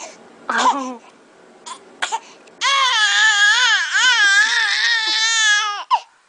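Infant crying: a brief fussy cry and a couple of short catches of breath, then from about two and a half seconds in a long wail wavering up and down in pitch, broken off by a quick gasp near the end.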